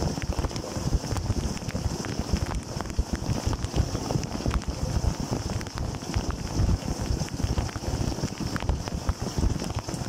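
Dishwasher wash cycle heard from inside the tub: water jets from the spray arms pelting the racks and the camera in a steady churning rush, with many small taps of spray and drops.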